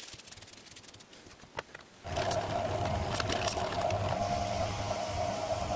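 Benchtop drill press switching on about two seconds in and running steadily with a hum while its bit drills a hole through an end plate. Before that, a few light clicks from a cloth wiping the drill table.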